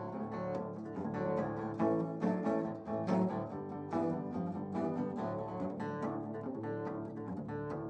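Instrumental break in a blues song: guitar playing a run of quick picked notes, with no singing.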